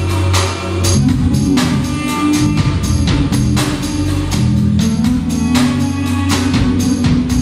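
Live band playing world music: a duduk holds a melody over a steady low bass drone, with hand percussion and tambourine keeping an even beat of about two strikes a second.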